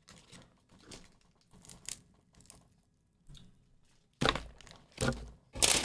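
Plastic snack wrapper crinkling faintly as it is opened, then three loud thumps in the last second and a half.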